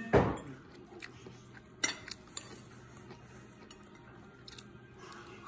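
Tableware during a meal: a dull knock at the very start, then a few light clinks of chopsticks and spoons against porcelain bowls and plates, spaced a second or so apart.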